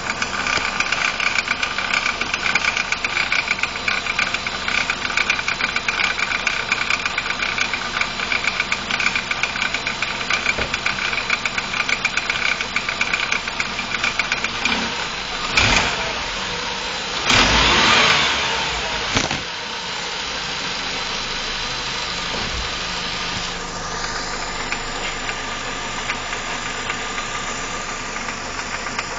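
BMW E46 318i's N42B20 four-cylinder engine idling with a fast, continuous rattle from the intake area. About halfway through there are a few brief louder bursts of noise, after which the engine runs more smoothly with the rattle less prominent.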